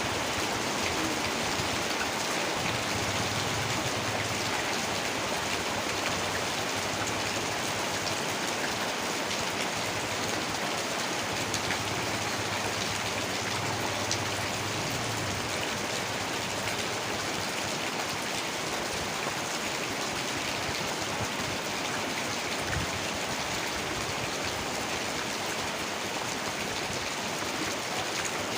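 Heavy rain falling steadily, a dense, even hiss of drops on surfaces.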